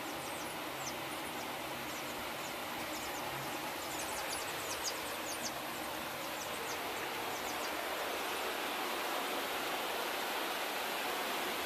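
Steady hiss of heavy rain, growing slightly louder near the end, with many short, high chick peeps over it during the first several seconds.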